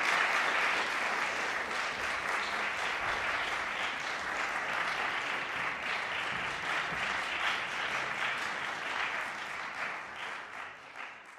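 Audience applauding, the clapping slowly growing quieter and thinning to a few separate claps near the end.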